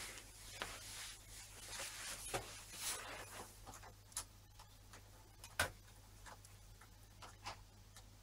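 Handling noise from an opened 2.5-inch laptop hard drive and its cables being moved by hand: scattered light clicks and rubs, with one sharper click about five and a half seconds in, over a faint low steady hum.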